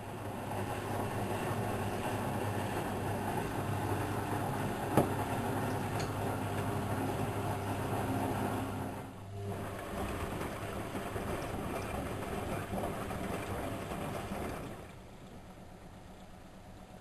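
Whirlpool washing machine's drum motor running with a steady low hum over a rushing noise. It pauses briefly about nine seconds in, runs again, then stops a couple of seconds before the end, leaving a quieter hum.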